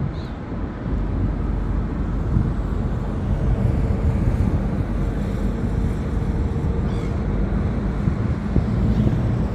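Wind buffeting the microphone as a steady low rumble, with a faint steady hum underneath that stops about three quarters of the way through.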